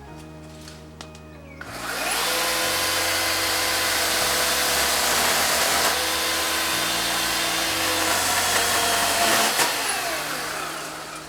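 Ryobi 18V cordless chainsaw cutting through bush branches. The motor spins up about two seconds in, runs with a steady electric whine and chain noise for about nine seconds, then spins down near the end.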